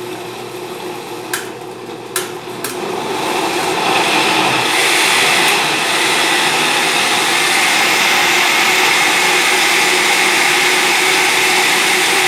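Countertop blender running, puréeing onion, chile, garlic and herb leaves with water into a seasoning paste. There are a few sharp clicks in the first seconds, then the motor grows louder about three to four seconds in and runs steadily.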